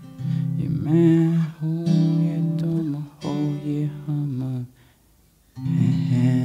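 Acoustic guitar strumming the closing chords of a song, with a short break near the end before a last chord rings out.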